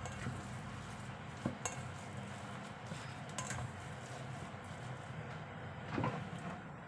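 A plastic rice paddle stirring and scraping a ground-meat mixture in a stainless steel bowl, with a few sharp knocks against the bowl; the paddle is set down near the end.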